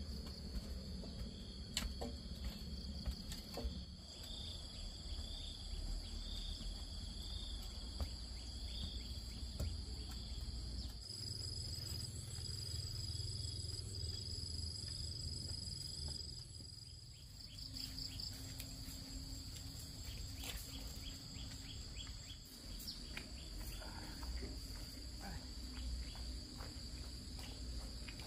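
Insects trilling in steady high-pitched tones, with bursts of rapid pulsed chirping, over a low background hum. A few faint taps and knocks are scattered through it.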